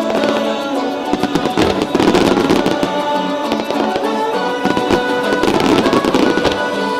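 Fireworks crackling and bursting in rapid succession, over music played along with the display.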